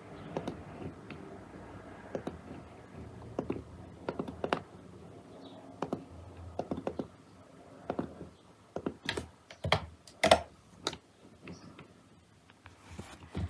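Typing on a computer keyboard: irregular key clicks, with a few louder key strikes about nine to eleven seconds in.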